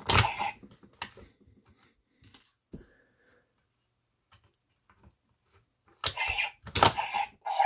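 Plastic clicks and clacks from handling the CSM Drag Visor toy gauntlet as advent cards are loaded into it, with a loud burst near the start and a cluster of louder sounds near the end.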